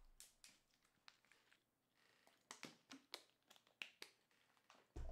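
Near silence broken by faint, irregular clicks and taps, about a dozen over a few seconds, ending in a low thump.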